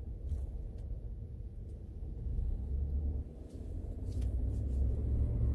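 Low rumble of a vehicle's engine and road noise heard from inside the cabin as it drives off. It dips briefly about three seconds in, then builds again as it picks up speed, with a few faint ticks.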